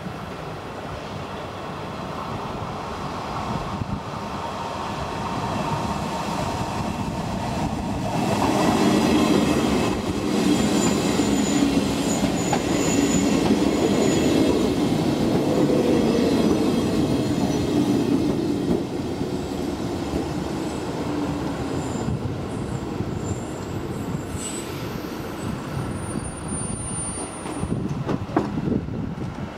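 Roslagsbanan X10p electric multiple unit passing over a level crossing. It builds over about eight seconds and is loudest for about ten seconds as the cars roll by, with a hum and a high wheel squeal, then fades as it runs off.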